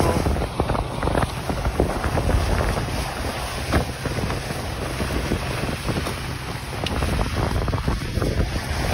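Dust devil's gusting wind buffeting the microphone in a heavy low rumble, with many scattered knocks and clatter as crates and produce are thrown about.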